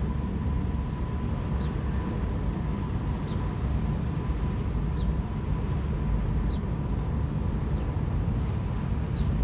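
Steady low outdoor rumble, with a faint high chirp about every second and a half.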